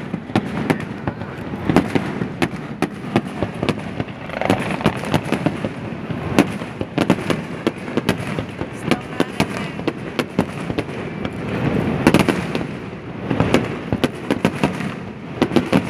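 Aerial fireworks shells bursting in quick, irregular succession: many sharp bangs close together over a continuous din.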